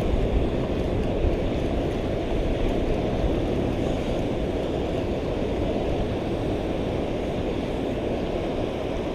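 Steady rushing noise of wind on the microphone and waves against the rocks, while a spinning reel is cranked in against a hooked, fighting fish.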